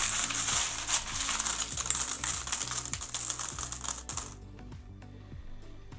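A hand rummaging through a tub of mixed coins: many coins jingling and clinking against each other, stopping suddenly about four seconds in.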